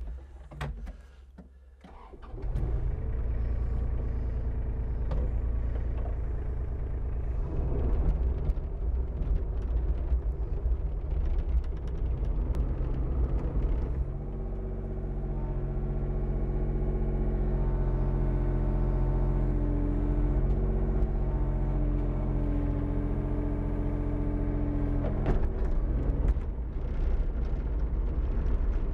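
John Deere mini excavator's diesel engine starting about two seconds in, then running steadily. Its note changes about halfway through as the machine works and drives, with a few knocks near the end.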